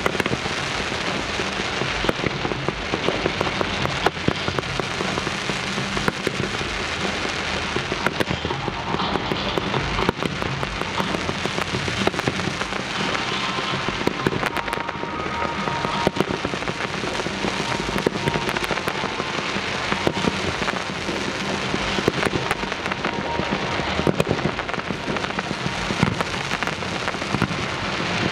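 Fireworks fountains hissing and crackling without a break, with many sharp pops from small shells and stars scattered throughout.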